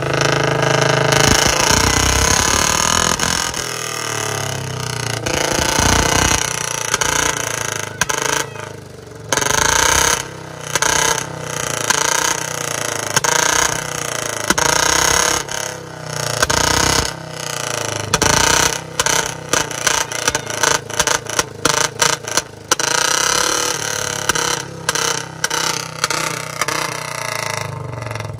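Royal Enfield Bullet single-cylinder engine running with its exhaust led through a long pipe laid on the ground, revved repeatedly; through the second half the throttle is blipped in quick, choppy bursts.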